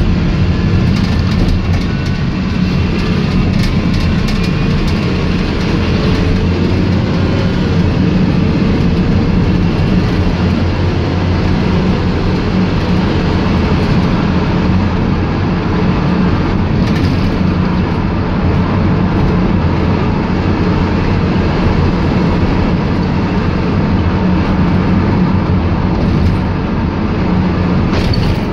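VW Transporter T5 minibus with a Bluebird Tucana body on the move: a steady engine and road rumble, with scattered clicks and rattles from the body and fittings.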